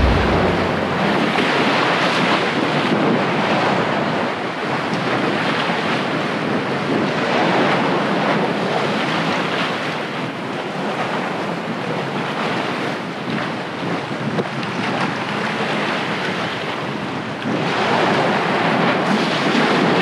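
Wind buffeting the microphone over the wash of sea waves: a steady, rushing noise that swells and eases, growing louder again near the end.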